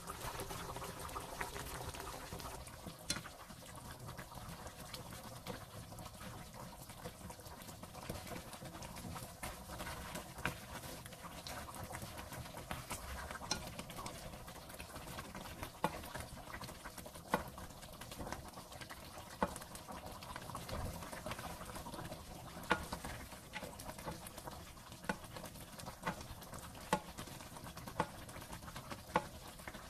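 Coconut-milk sauce simmering in a nonstick pan, a soft steady bubbling broken by scattered sharp pops that come more often in the second half.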